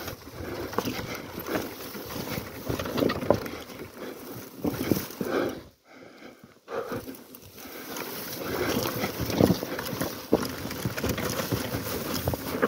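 Honda Tornado dirt bike rolling down a steep, rocky slope, its wheels and suspension knocking and rattling irregularly over loose stones. The sound drops almost away for about a second near the middle.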